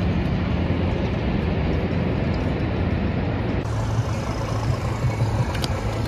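Steady, loud rushing noise with a deep rumble, with no clear single event in it. It changes abruptly about three and a half seconds in.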